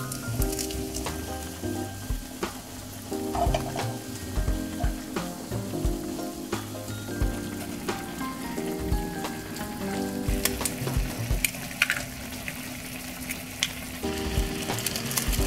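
Spicy ramen and rice-cake broth simmering and sizzling in a nonstick frying pan while the noodles are stirred with tongs, with scattered clicks of the tongs against the pan. Soft background music plays under it.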